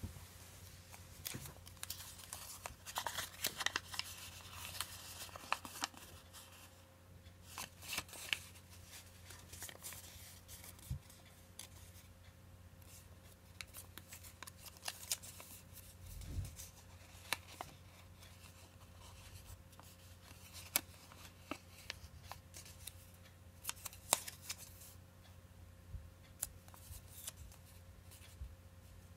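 Origami paper being folded and creased by hand: irregular rustles and sharp crackles as the paper is bent and pressed flat, with clusters of crinkling several times. A faint steady hum lies underneath.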